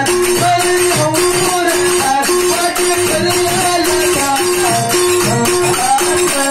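Live stage music: a keyboard plays a bending melody over a steady note repeated about twice a second, with a fast ticking percussion beat and no singing.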